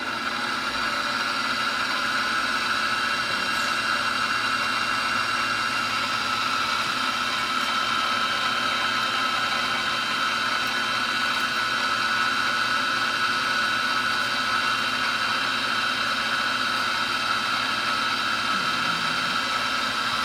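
Milling machine spindle running steadily with an even motor whine.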